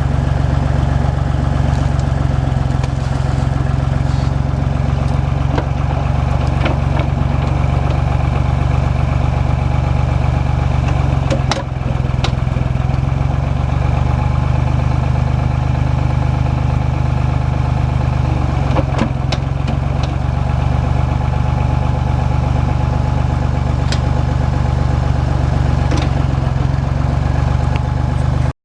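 Small Ford tractor's engine running steadily while it powers a three-point-hitch backhoe, its note dipping briefly twice, with a few sharp knocks here and there.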